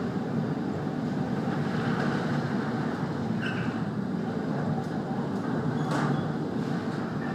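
Steady low rumble and noise of a ship underway in heavy seas, with a few faint knocks.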